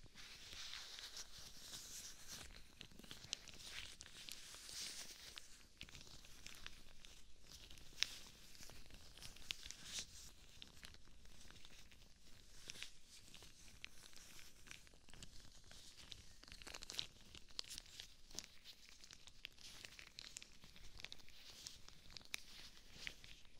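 White rubber gloves rubbing and brushing against and around the ears of a binaural microphone: a soft continuous hiss of rubber friction with many small sharp clicks, one stronger about eight seconds in.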